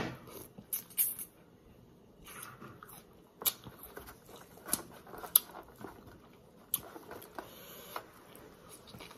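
A person biting into and chewing green Marian plums (plum mango), with sharp crunches at irregular intervals, roughly one a second.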